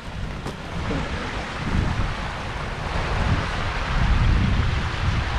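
Wind buffeting the microphone in gusts over the steady rush of a creek, the water's hiss growing fuller about halfway through.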